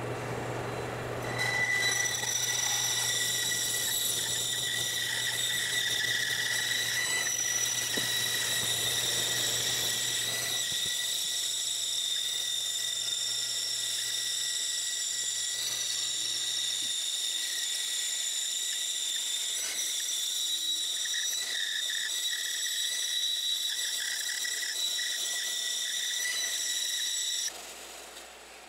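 Bandsaw running as it cuts through a thick laminated wood block, played back at four times speed, so it sounds as a high steady whine. It cuts off suddenly shortly before the end.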